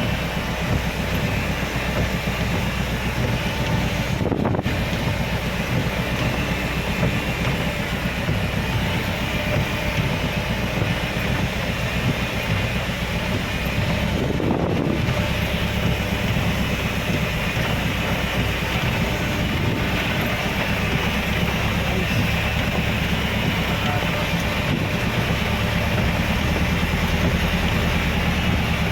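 A car driving on a rain-soaked road: a steady wash of tyre and rain noise over the engine's low drone.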